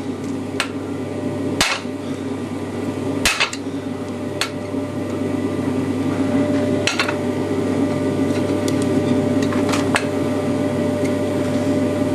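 Hammer blows on a handled top tool set against a red-hot round bar on an anvil: about six sharp metal strikes, irregularly spaced a second or more apart, fine-adjusting a crankshaft throw's bend to shorten its stroke. A steady hum runs underneath.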